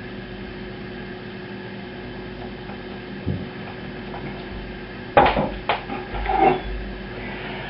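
Dishes and cutlery clattering: a light knock about three seconds in, then two sharp clinks about five seconds in and more clatter just after, over a steady electrical hum.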